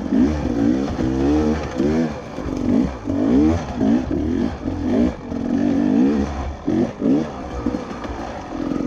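Beta 300RR two-stroke dirt bike engine revving up and down in quick surges as the throttle is worked on and off through a technical trail section.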